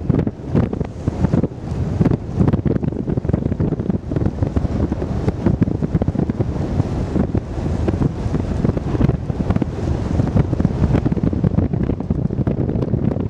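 Strong wind buffeting the microphone: a loud, gusty rumble that rises and falls rapidly throughout.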